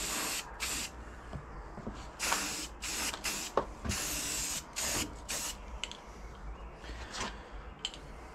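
Aerosol can of matte black spray paint hissing in about eight short bursts over the first five and a half seconds, then only a few brief puffs.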